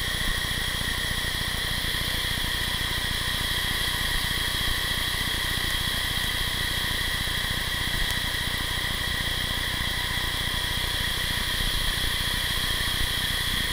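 River rapids rushing over rocks: a steady, even hiss with no breaks.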